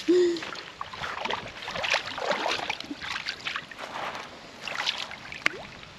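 Shallow river water sloshing and splashing in irregular strokes as a Saratoga is eased back into the water by hand, with a dog wading beside it.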